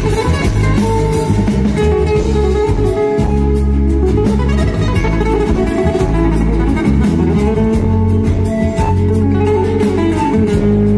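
A live band playing flamenco-style guitar music, with plucked guitars over a strong, steady bass line.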